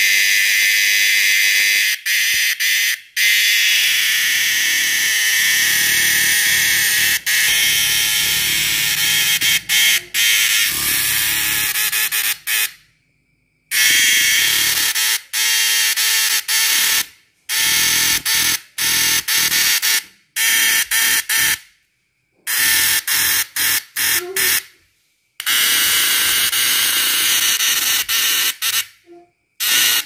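A cicada held in the hand giving its harsh, high, rattling buzz, the distress call of a cicada that has been caught. The buzz stops dead and starts again many times, with a few breaks of about a second.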